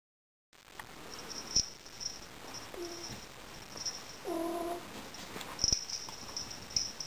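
Blue-cream Exotic Shorthair kitten giving two short meows, the second louder and longer, a second and a half after the first. A couple of sharp knocks come with them, one before the meows and one after.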